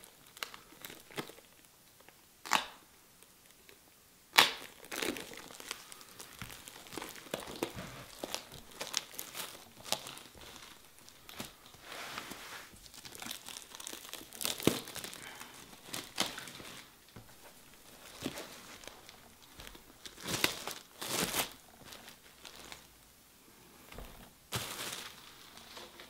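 Clear plastic shrink wrap being slit and peeled off a boxed book set, crinkling and tearing irregularly, with a few sharp snaps, the loudest about four seconds in.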